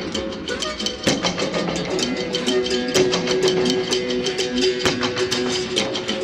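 Improvised acoustic music on Brazilian folk instruments (fife, harmonica, berimbau and zabumba drum): quick, dense percussive strikes over held pitched notes. The cooling tower's acoustics add an echoing delay and a long reverberation.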